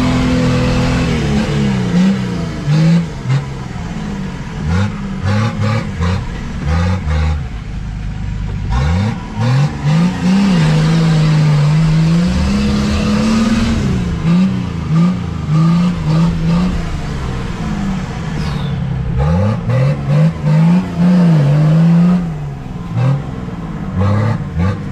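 Off-road 4x4 engine revving up and dropping back again and again as it works over rough ground with its differential lock engaged, with knocks and rattles from the vehicle throughout.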